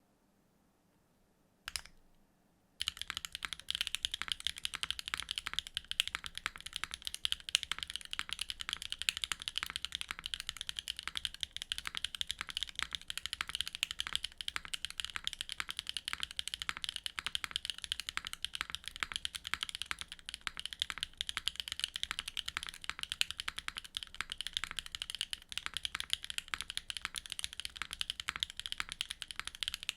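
Typing on a Neo65 mechanical keyboard with a carbon fibre plate and HMX Songyue switches: a single click just before two seconds in, then fast, continuous keystrokes from about three seconds in.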